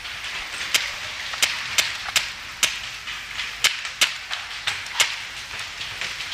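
Paintball markers firing: about eight sharp, irregularly spaced pops over several seconds during a skirmish.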